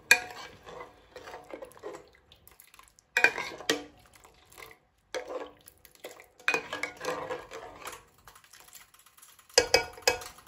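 Stainless steel measuring cup clinking and scraping against containers as thick coconut cream is scooped out and poured into a non-stick pot of milk. There is a sharp clink right at the start, then several shorter bursts of clatter with quiet gaps between them.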